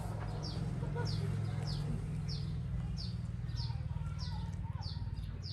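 A bird repeating a short, high, falling chirp at an even pace, about once every two-thirds of a second, over a steady low hum.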